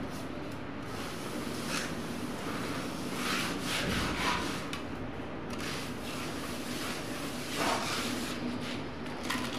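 Hand trowel scraping and rubbing across wet cement plaster on a wall, in irregular strokes.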